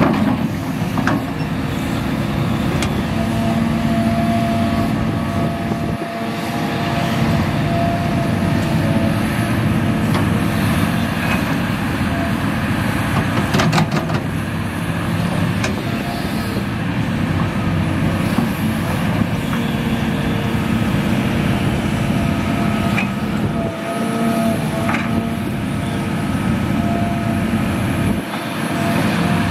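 Hitachi Zaxis 350H excavator's diesel engine running steadily under load, with a faint hydraulic whine that wavers as the machine digs and swings soil into a dump truck. A short clatter comes about halfway through.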